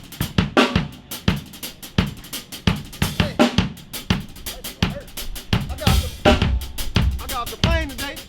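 Drum kit being played, a steady run of sharp hits, with voices talking underneath.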